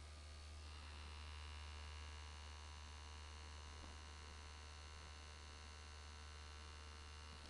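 Electric back massager running with a faint, steady low hum and buzz.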